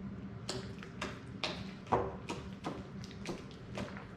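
Slime being mixed and worked, giving a run of short sticky clicks and pops, about three a second.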